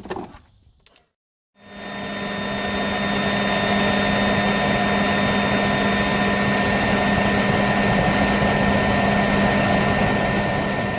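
Small leaf blower starting up about a second and a half in and running at a steady whir, forcing air into the furnace to fan the fire.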